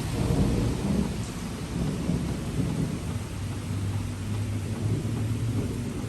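Steady rain with a low, rolling rumble of thunder, loudest in the first second or two.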